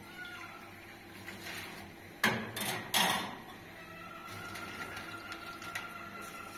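Two sharp clanks of metal striking metal, a little under a second apart, each ringing briefly. A faint steady tone comes in about four seconds in.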